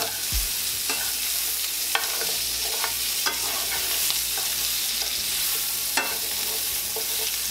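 Sliced onions sizzling steadily in hot pan drippings left from searing pork ribs in a skillet. A few short, sharp clicks come from a hand spice grinder being twisted over the pan.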